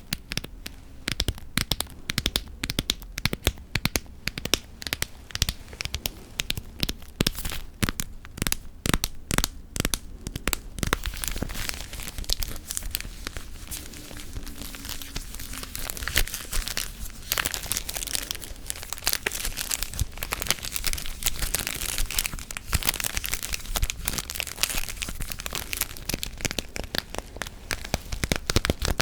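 Close-miked ASMR tapping and crinkling: a fast, uneven run of sharp clicks that turns, about ten seconds in, into a denser crackling, crinkly texture.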